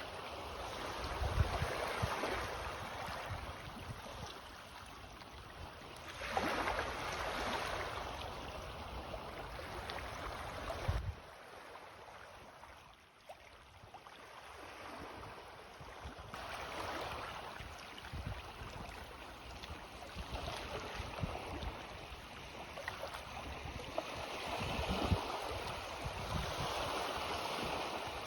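Small sea waves lapping and washing in on a rising tide, swelling and fading in surges every several seconds, with a lull around the middle.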